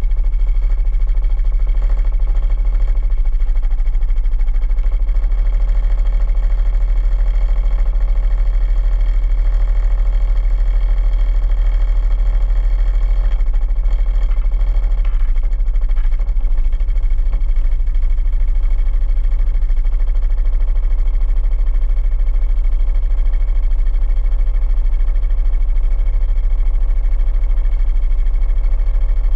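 Quad bike engine idling steadily while the bike stands still.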